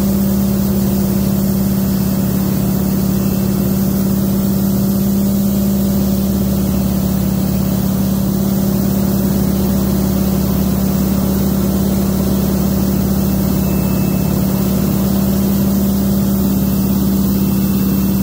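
North American T-6 Texan's Pratt & Whitney R-1340 radial engine and propeller droning steadily at cruise power, heard from inside the cockpit, with the constant rush of air over the canopy.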